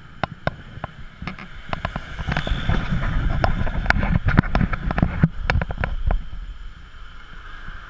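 Sharp clicks and knocks as a scooter's seat is lifted and its fuel cap is handled, over a low rumble that swells for a few seconds in the middle.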